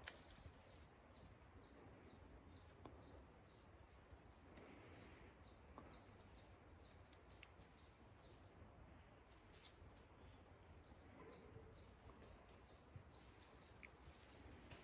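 Near silence: faint ambience with soft, high chirps repeating about twice a second.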